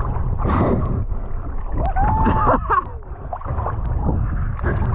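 Choppy sea water sloshing and gurgling around a head-height camera at the surface, with wind buffeting the microphone. About two seconds in, a short wordless call rises and falls.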